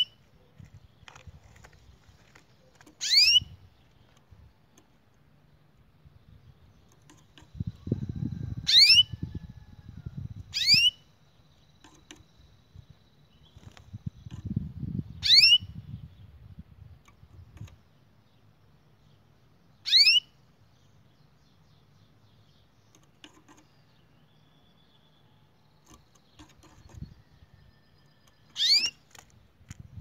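Canary giving single short, sharp chirps, about six of them spaced several seconds apart, rather than a running song.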